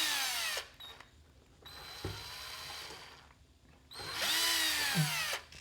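Power drill driving out the screws that hold a TV stand, its motor whining in three runs. The first and last runs are loud and drop in pitch as they end; the middle one is quieter and steady.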